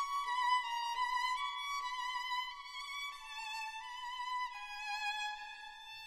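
Background music: a violin playing a slow melody of held notes with vibrato, the line stepping gradually lower in pitch over the second half.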